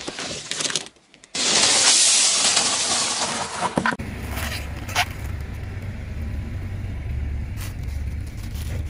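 A loud, even hiss lasting about two and a half seconds, then a car's steady low rumble with a few sharp cracks as a tyre rolls over and crushes a bundle of chalk sticks.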